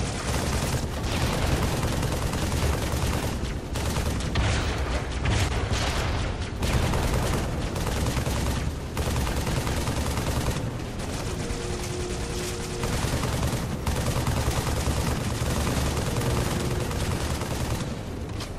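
Battle sound effects: continuous rapid gunfire, a dense clatter of shots with no break.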